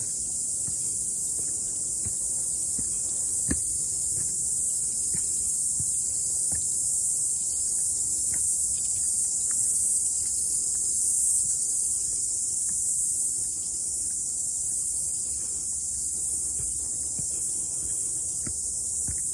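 Cicadas singing in a steady high-pitched chorus that swells slightly around the middle, with scattered faint ticks beneath it.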